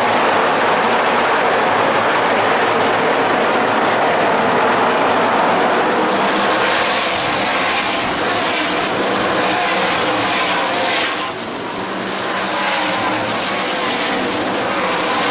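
A pack of NASCAR Craftsman Truck Series race trucks running flat out on the track, their V8 engines sounding together in a loud, steady drone. The sound dips briefly about eleven seconds in, then picks back up.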